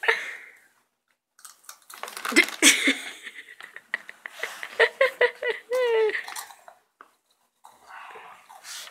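A child chewing crunchy, spicy rolled tortilla chips (Takis), with crackly crunches. Short voiced sounds come in the middle, including a rising and falling sound.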